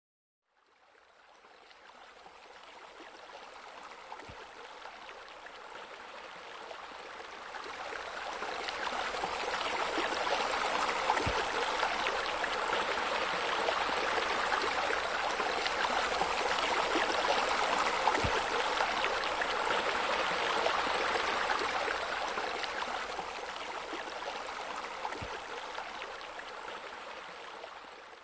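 Running, splashing water of a pool's rock waterfall and spa spillover, growing louder over the first ten seconds or so and fading away near the end.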